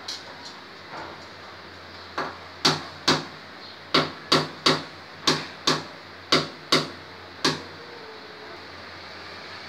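Hand hammer striking on a tiled wall: about a dozen sharp blows, mostly in quick pairs about half a second apart. They begin about two seconds in after a few light taps and stop about three quarters of the way through.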